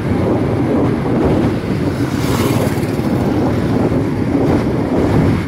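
Steady rumble of road traffic and wind on the microphone, heard from a vehicle moving along a city road. A brief louder hiss comes in about two seconds in.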